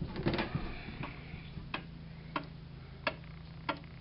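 Seth Thomas 8-day pendulum wall clock ticking, one sharp tick about every two-thirds of a second, over a faint steady hum. A little light knocking and handling sound in the first second.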